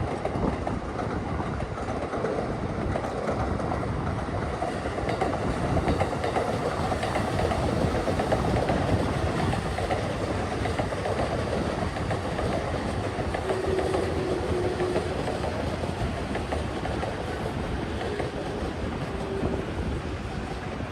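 Train running by on rail tracks: a steady rumble with wheel clatter, and a brief thin tone a little past the middle.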